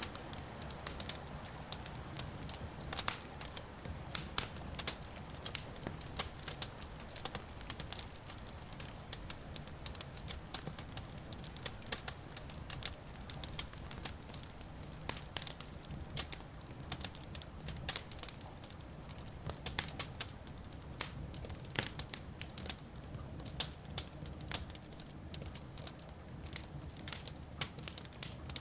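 Wood fire crackling, with irregular sharp pops and snaps over a low, steady rumble.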